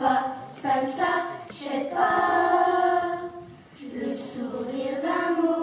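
Children's choir singing together, a few short sung syllables followed by a long held note, a brief breath, and another sustained line.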